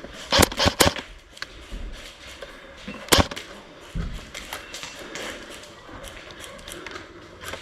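Airsoft gunfire: a quick burst of three or four sharp cracks about half a second in, then a single louder crack about three seconds in, with faint ticks in between.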